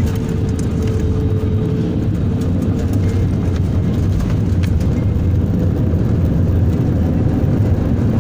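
Airliner noise, a steady low rumble of engines and rushing air, with a faint steady hum that fades out about three and a half seconds in.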